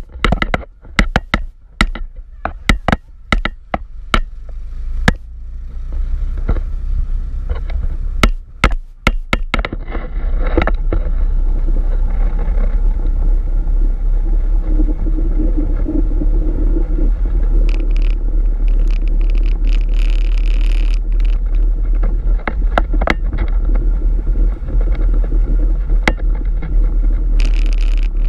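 Open vintage army-style jeep on the move, heard from the side of the body: for about the first ten seconds, many sharp knocks and rattles over a low engine rumble, then a steady loud rumble of engine and road noise with a few brief bursts of hiss.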